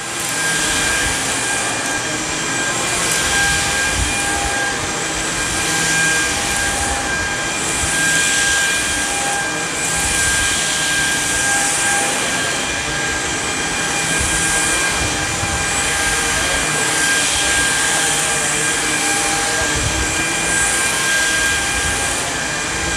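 Samsung Jet VS70 cordless stick vacuum running with its turbo action brush on thick carpet, picking up hair and litter: a steady motor whine over a hiss that swells and eases every second or two as the head is pushed back and forth.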